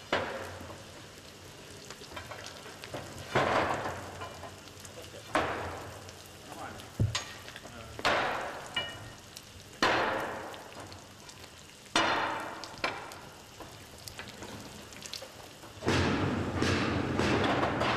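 Molten bell metal hissing and sputtering during the casting pour of a bell, in repeated bursts that start suddenly and fade, every two to four seconds, thickening into a longer sputter near the end.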